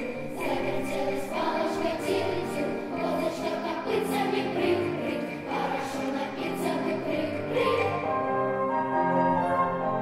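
Children's choir singing a song with accompaniment and a light, regular tapping percussion beat. About eight seconds in the singing gives way to steadier held notes of a solo flute.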